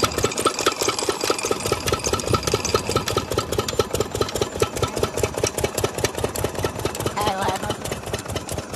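10 hp diesel engine of a water pump set running at a steady speed, with a rapid, even chugging beat.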